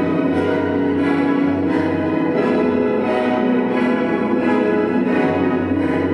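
Orchestral music with sustained string-like chords and a steady pulse.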